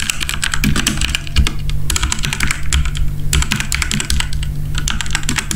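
Fast typing on a Gamen Titan Elite mechanical keyboard with red linear switches and PBT double-shot keycaps: a dense run of key clacks, with two brief pauses near the middle.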